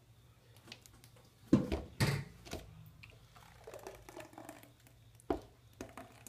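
Hard plastic clunks and knocks from the Ninja blender pitcher and its removable stacked blade assembly being handled and lifted out, two loud knocks about one and a half and two seconds in and another about five seconds in, over a low steady hum.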